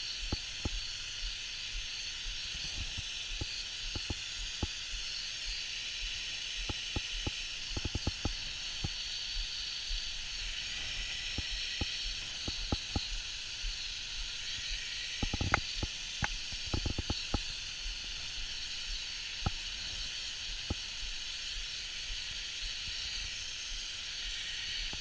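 Steady hiss of a fine water mist spraying continuously from a nozzle, with scattered light ticks and taps, bunched in a few places.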